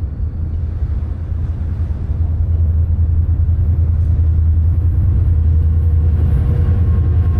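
EMD GP40-2 diesel locomotive's 16-cylinder two-stroke engine approaching as a low, steady rumble that grows louder about two and a half seconds in.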